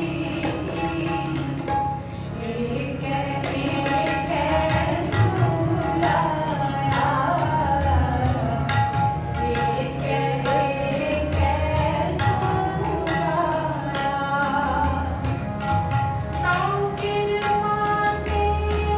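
Sikh kirtan: harmonium playing the melody over a held drone, tabla keeping a steady rhythm with deep bass-drum strokes, and a woman singing the shabad.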